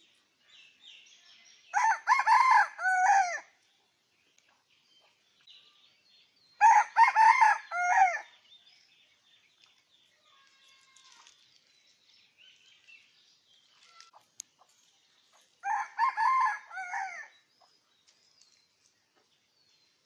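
Rooster crowing three times, each crow about a second and a half long, the second one about five seconds after the first and the third about nine seconds later.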